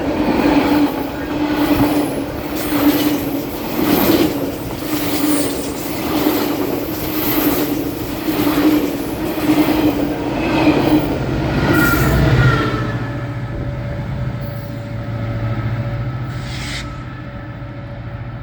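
GO Transit bilevel passenger cars passing close by, their wheels clacking over the rail joints in a regular rhythm with some wheel squeal. About ten seconds in, a deeper diesel engine drone comes in as the locomotive at the rear of the push-pull train goes by, then slowly fades.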